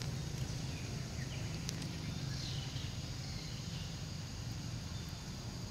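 Outdoor ambience: a steady low rumble with faint high chirping, and a single sharp click just under two seconds in.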